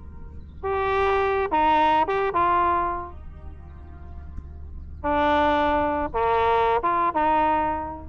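A solo brass horn plays two short melodic phrases of four or five held notes each, with a pause of about two seconds between them and a low steady rumble underneath.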